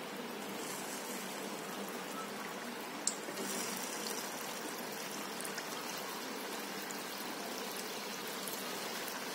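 Potato gulab jamun dough balls deep-frying in hot oil and ghee in a kadhai: a steady, gentle sizzle. A small click about three seconds in, after which the sizzle is a little louder.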